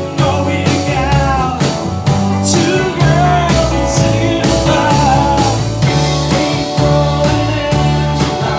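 A live rock band playing a song with a steady drum beat: a strummed acoustic-electric guitar, electric guitars, an electric bass and a drum kit.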